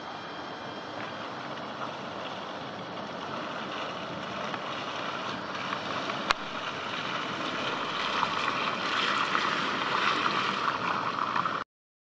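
Subaru Forester XT driving slowly through slushy mud, its engine and tyres heard as a steady rush that grows louder as the car comes closer. A sharp click sounds about halfway through, and the sound cuts off suddenly near the end.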